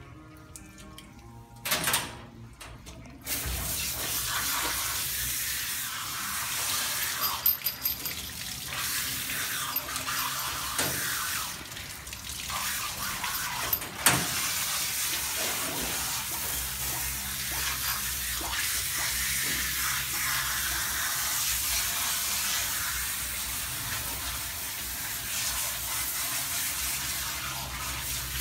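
A couple of sharp knocks about two seconds in, then the grooming tub's hand-held sprayer comes on and runs steadily, water hissing out of the nozzle and splashing through a wet dog's coat onto the tub floor as the dog is rinsed.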